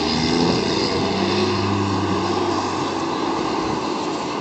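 Diesel semi-truck engine running at low speed as the truck maneuvers, a steady drone.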